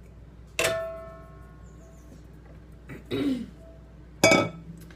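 A metal spoon clinking against a stainless steel mixing bowl twice, about half a second in and again near the end, each strike leaving a ringing tone that fades away, with a brief softer sound in between.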